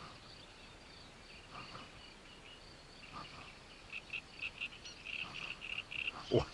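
Faint high chirping of small animals, turning into a quick run of short chirps about five a second from about four seconds in. A sharp knock comes just before the end.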